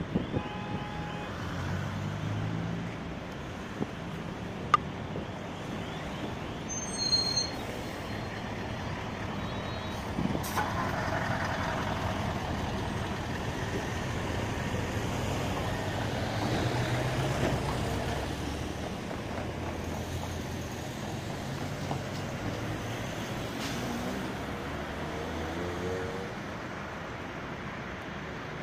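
City road traffic recorded through a smartphone microphone: a steady low rumble of passing cars and vans, with a few sharp clicks and a brief high-pitched squeal about seven seconds in.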